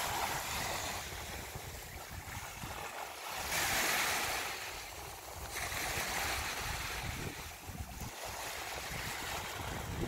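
Small waves breaking and washing up a shelly sand beach. The hiss of the wash swells about three and a half seconds in and again around six seconds, over a low rumble of wind on the microphone.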